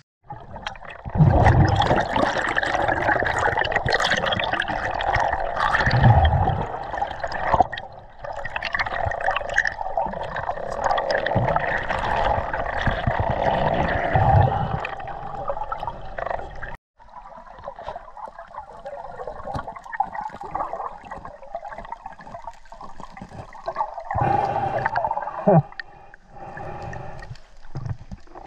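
Water gurgling and rushing around a submerged camera as a snorkeler moves along a riverbed, with dull knocks, heard as through an underwater housing. After a sudden short break about two-thirds through it goes on quieter.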